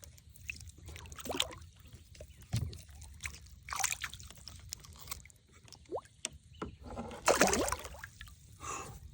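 Water sloshing and splashing around a kayak in short, irregular bursts, the loudest about seven and a half seconds in.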